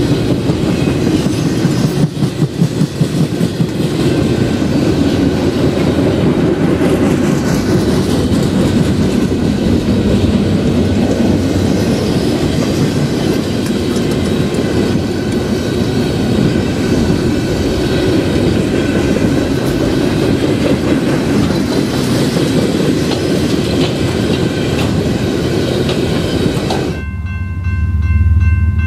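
Freight train of flatcars carrying wind turbine blades rolling past close by, a steady rumble and clatter of wheels on rail. About 27 s in it cuts abruptly to a different, distant approaching freight train: a low diesel locomotive hum with a steady multi-tone air horn sounding.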